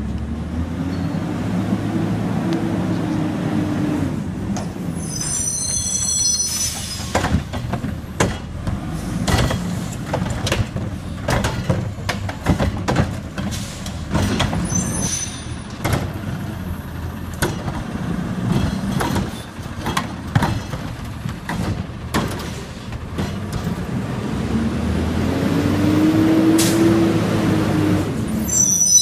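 Curotto Can front-loader garbage truck running, its engine pitch rising and falling once about a second in and again near the end. Brief high brake squeals come about six seconds in and just before the end, with a run of clanks and knocks in between.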